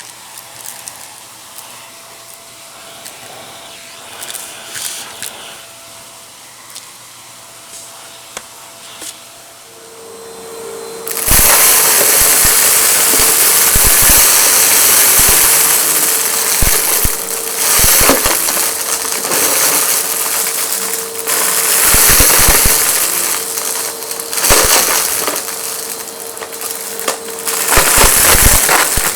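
Faint handling clicks, then about eleven seconds in a vacuum cleaner switches on and runs loudly with a steady motor whine. Many sharp clicks and rattles run through it as hard debris is sucked up and knocks through the machine.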